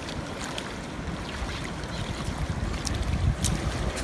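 Ocean surf washing on a beach, with wind gusting on the microphone; the low rumble swells about three seconds in.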